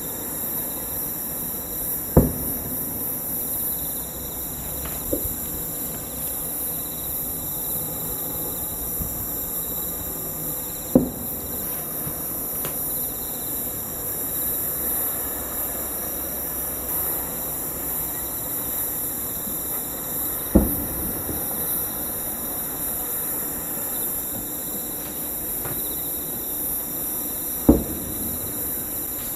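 Distant aerial firework shells bursting about 3 km away: four sharp booms several seconds apart, with a fainter one between the first two. Under them runs a steady high chorus of night insects.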